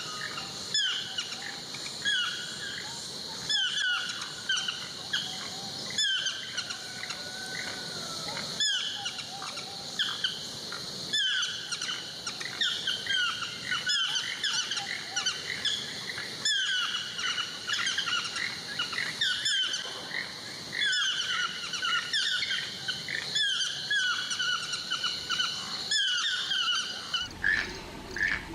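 Birds calling in a forest: clusters of short, downward-sliding calls repeat every second or two over a steady high insect hum.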